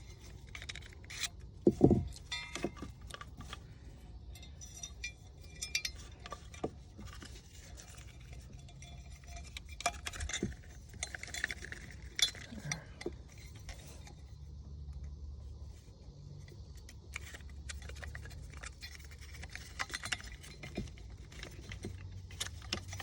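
Small metal and plastic parts of a Mercury Marine boat remote control being handled and fitted together: scattered light clicks, clinks and knocks, with one louder knock about two seconds in, over a faint steady low hum.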